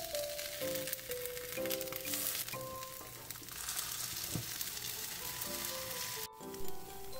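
Okara (soy pulp) pancakes sizzling in hot oil in a nonstick frying pan as a spatula flips them, with a short knock near the end. Light background music with a simple note-by-note melody plays over it.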